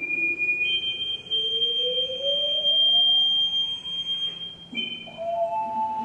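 A water instrument sounding several sustained, pure ringing tones: two high tones held steady, a lower tone that glides slowly up in pitch over about four seconds, and a new pair of middle tones that sets in near the end.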